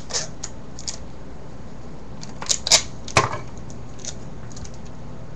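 A few sharp plastic clicks from Rubik's 4x4 cube pieces being handled, with a cluster of three about two and a half to three seconds in, over a steady low hum.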